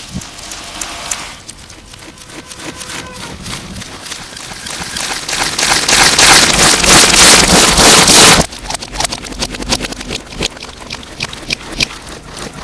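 Slime being squished and worked close to the microphone, distorted: a run of wet clicks and crackles, swelling about halfway into a loud, dense stretch of crackling that cuts off suddenly.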